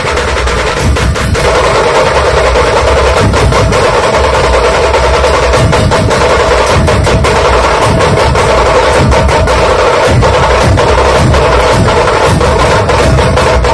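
Loud music with drums and percussion: a dense, continuous mix with many sharp strikes throughout.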